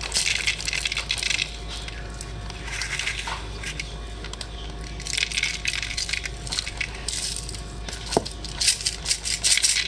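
Candy sprinkles rattling as they are shaken out of their container, in about five short bursts.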